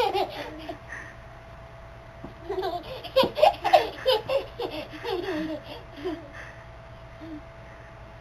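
Baby laughing in repeated short bursts, loudest about three to four seconds in, over a faint steady whine.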